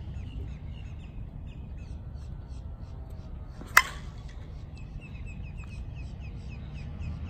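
Miken Freak Primo slowpitch softball bat striking a pitched softball about four seconds in: one sharp ping with a brief ring. The ball is hit low on the barrel and still carries out of the park. Birds chirp in the background.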